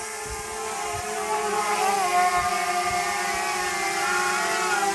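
Small quadcopter drone (DJI Mavic Mini) with propeller guards hovering: a steady, multi-tone propeller whine that wavers in pitch as the motors adjust, growing a little louder about one and a half seconds in.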